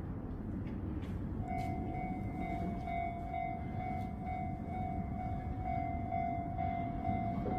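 Railway level-crossing warning bell starting up about a second and a half in, a clear pitched ding repeating at an even quick beat, the signal that a train is approaching. A steady low rumble of background noise lies under it.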